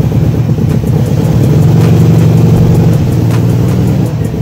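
1971 VW Beetle's air-cooled flat-four engine running, rising a little about a second and a half in and easing back about three seconds in.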